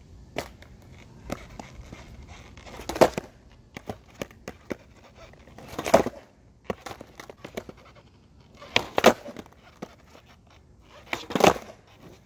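Skateboard on concrete during ollie attempts: four loud clattering clusters of the tail popping and the wheels slapping back down, about every three seconds. Lighter clicks and knocks of the board and wheels come in between.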